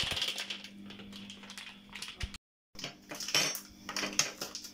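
Cutlery clinking: a metal spoon and a plastic spoon handled and set down on the kitchen worktop, a scatter of light clicks that breaks off for a moment about halfway through.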